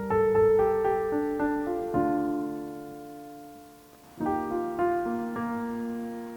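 Soft background piano music: gentle chords and melody notes struck and left to fade, a new phrase starting about four seconds in.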